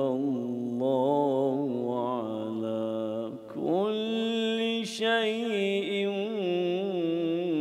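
A man's voice reciting the Quran in the slow, melodic tajwid style, drawing out long, ornamented notes. There is a short breath about three and a half seconds in before the next phrase begins.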